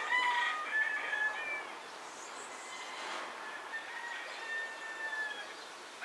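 Birds calling: several short calls in the first second and a half, then one long call from about four seconds in.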